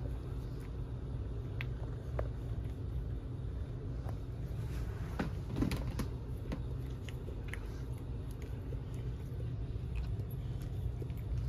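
Steady low rumble of room noise with faint scattered clicks and smacks from newborn puppies suckling.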